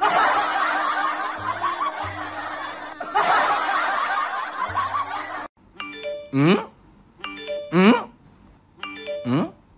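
Canned laughter from a crowd for about five seconds, then it cuts off sharply. A short musical sound effect follows, a chime with a quick swooping tone, repeated four times about a second and a half apart.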